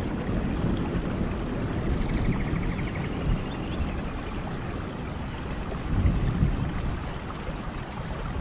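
Steady rain with low rumbling that swells about a second in and again around six seconds. Faint short chirps repeat high above it.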